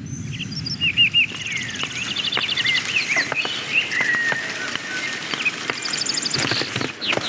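Animated-film nature ambience: bird chirps and quick pulsed trills, some rising or falling in pitch, over a steady low rumble.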